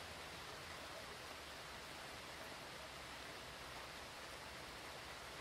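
Steady rain, heard as an even, unbroken hiss with no distinct drops, thunder or surges.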